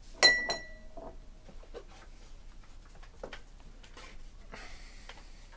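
Sports-card foil packs and cards being handled on a table: soft clicks and wrapper rustles, with a longer crinkle of wrapper near the end. About a quarter second in there is a sharp bright ringing ding, struck twice in quick succession, which is the loudest sound.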